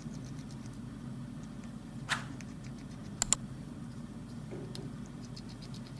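Small metallic clicks and ticks of a precision screwdriver backing tiny screws out of a phone's plastic inner cover, with a louder click about two seconds in and a sharp double click just after three seconds. A steady low hum runs underneath.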